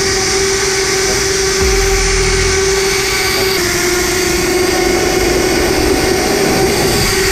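Zipline trolley pulleys running along a steel cable: a steady whirring whine that dips slightly in pitch partway through. A brief low rumble comes in a couple of seconds in.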